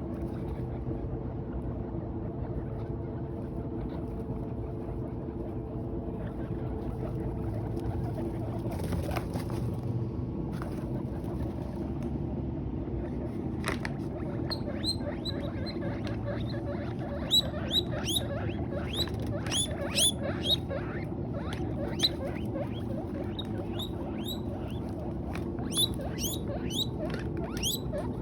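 Guinea pigs eating hay, with a steady low rustle and chewing noise throughout. About halfway through they begin a run of short, high squeaks that come in quick clusters toward the end.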